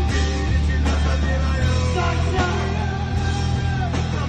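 A live rock band playing: a man singing into a microphone over a Tama drum kit, bass guitar and guitar, with several cymbal crashes.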